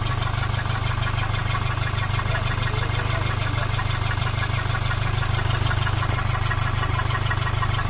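An engine idling steadily with a constant low hum and no change in speed.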